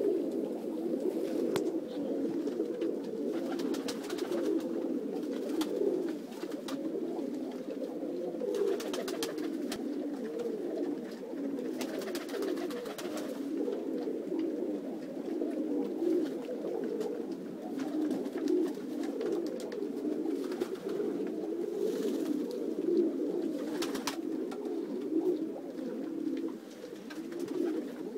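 A flock of domestic pigeons cooing without a break, many low coos overlapping. Now and then there are short rustling noises.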